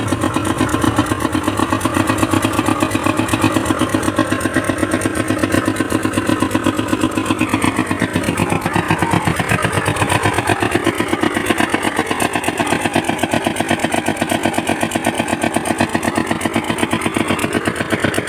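Small single-cylinder diesel pumpset engine running steadily with a fast, even beat, driving a water pump.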